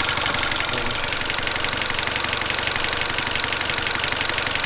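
Mini Cooper R56 engine idling steadily with a fine, rapid, even ticking, run up to working temperature, where its oil pressure drops to about 0.5 bar instead of 0.7.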